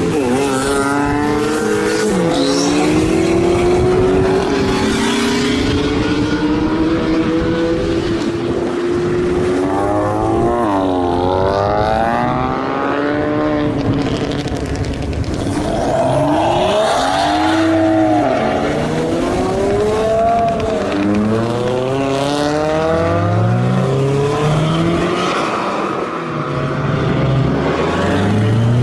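Car engines revving and accelerating, the engine note climbing and dropping back again and again, with more than one car heard at once at times.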